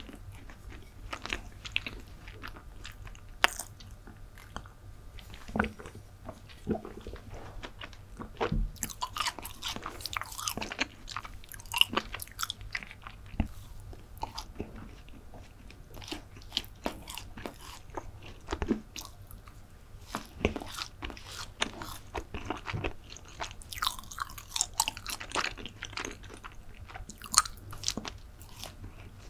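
Close-miked chewing and biting of chocolate brownie, a run of irregular wet mouth clicks and smacks with occasional crunches.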